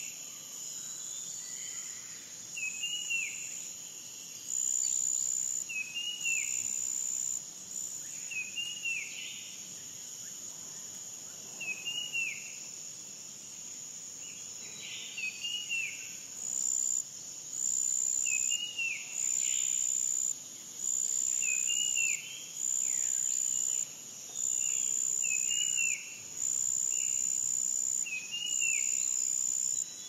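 Cicadas making a high buzz that swells and drops in blocks of a second or two, falling into a regular on-off pulse in the second half. Under it, a bird repeats a short rising-and-falling note every second or two.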